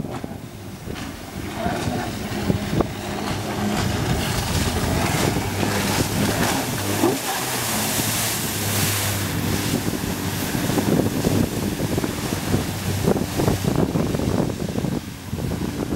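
Narwhal Sea Jet 280 jet-drive inflatable boat running at speed through turns: a steady engine drone under the hiss of spray and water, with wind on the microphone. The hiss is loudest about halfway through, when the boat passes close.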